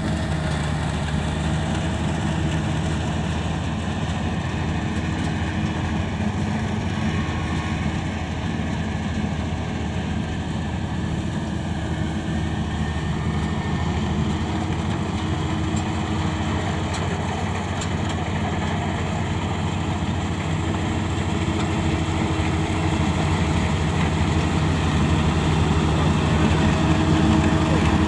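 Kubota DC35 combine harvester's diesel engine running steadily with the noise of its working machinery, growing a little louder in the last several seconds.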